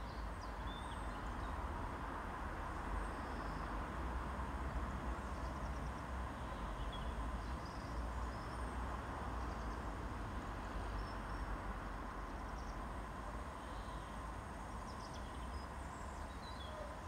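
Steady low outdoor rumble with small birds chirping briefly now and then.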